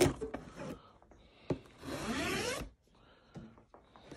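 Packing tape being ripped off a cardboard shipping box in one pull lasting just under a second, after a sharp knock on the box; a few light cardboard taps follow.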